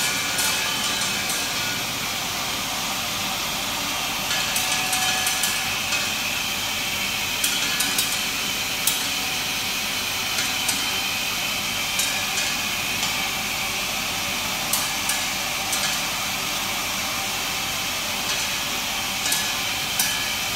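Tablet-processing machine running on large flat tablets: a steady hiss with irregular sharp clicks, which come in a quick cluster about four seconds in and then every second or so.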